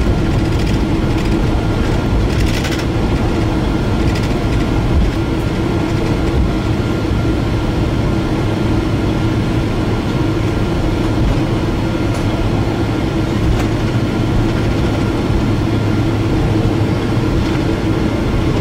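Steady cabin noise of a Boeing 777 airliner rolling out on the runway after landing: the rumble of the wheels and engines, with a steady low hum throughout.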